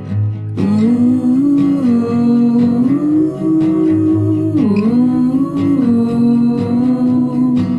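Indie folk music: plucked acoustic guitar under a wordless, hummed vocal melody that holds and glides between notes.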